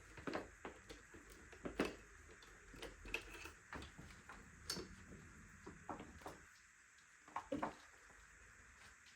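Faint, irregular light clicks and knocks, a few each second with uneven gaps. No motor is running.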